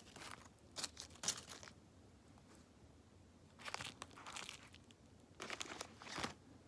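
Thin plastic parts bag crinkling in three short spells as hands pick a new fuel-injector seal out of it.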